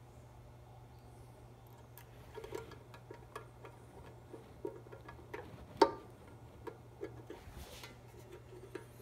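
Scattered light clicks and small knocks from hands handling a sheet-metal cover and a switch cable on a mill table, with one sharper knock about six seconds in, over a steady low hum.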